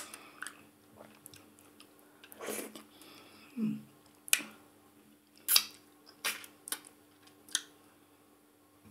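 Close-miked mouth sounds of someone eating ogbono soup with fufu by hand: chewing and finger-sucking, with a run of short, sharp wet smacks in the second half.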